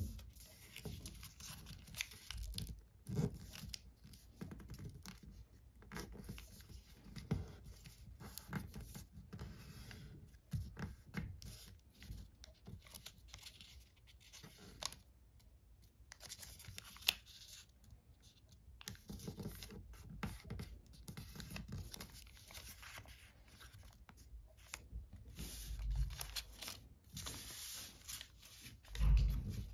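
Origami paper being folded and creased by hand: irregular rustling and scraping of the paper against the tabletop, with frequent short crisp crackles as folds are pressed flat, and a heavier knock near the end.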